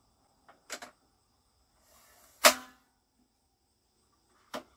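Hard parts being handled and set in place: a light click and a knock about a second in, a short scrape followed by one loud, sharp clack with a brief ring about halfway, and a single sharp click near the end.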